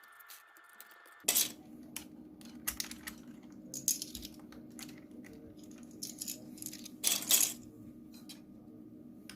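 Mechanical keyboard being typed on: irregular clacking keystrokes of plastic keycaps, with two louder clatters about a second in and near the end. A low steady hum comes in about a second in.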